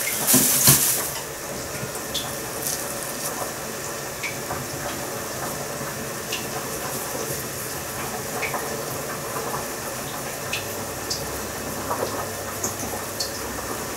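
A plastic bag crinkling in the hands for about a second, then a soft steady hiss with scattered faint crackles and clicks.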